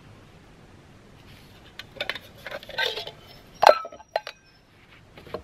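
Titanium camping pot and cup clinking and scraping together as they are handled and pulled apart: a string of light knocks starting about two seconds in, the loudest after about three and a half seconds, leaving a brief metallic ring.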